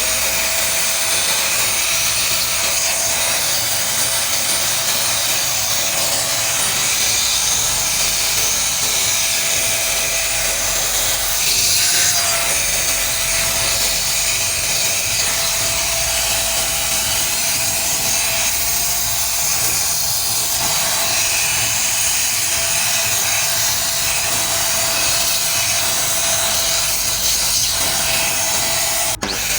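AGARO Regal 800-watt corded handheld vacuum cleaner running loudly: a rushing of air under a steady high motor whine. The whine rises briefly about twelve seconds in, and the sound dips for a moment near the end.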